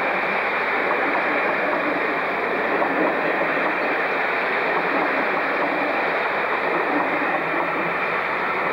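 Passenger coaches of an electric-hauled train rolling past on the track: a steady noise of wheels on rail that holds level throughout.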